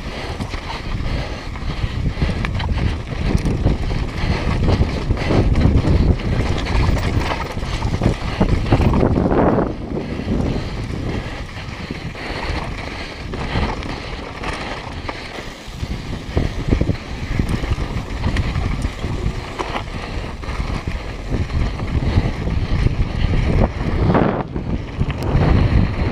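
Wind buffeting an action camera's microphone on a downhill mountain bike at speed, with the tyres running over dirt and loose gravel and many short knocks and rattles from the bike over rough ground.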